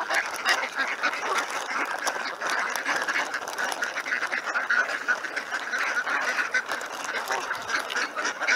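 A flock of ducks calling all at once: a dense, unbroken chatter of many short overlapping calls.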